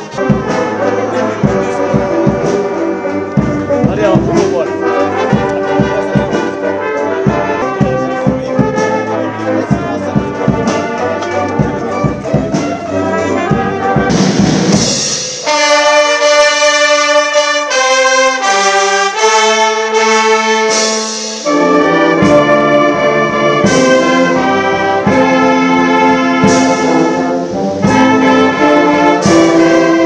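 Military brass band of trumpets, trombones and sousaphones playing. For the first half it is a brisk tune over a steady drum beat. About halfway through a short rising swell of percussion leads into slow, held brass chords.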